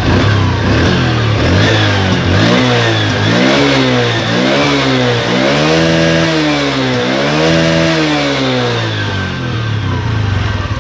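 Honda Revo Absolute's small single-cylinder four-stroke engine revved up and down several times from idle, then settling back to idle near the end. It runs smoothly after a rebuild with a new piston and cam chain work, with no cam-chain rattle or piston knock left.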